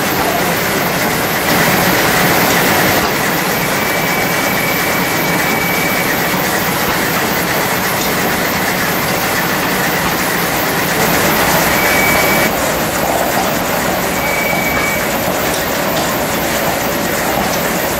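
Belt-driven antique machine shop running off a line shaft: overhead shafting, flat belts and a metal planer clattering steadily, with a few short high squeals.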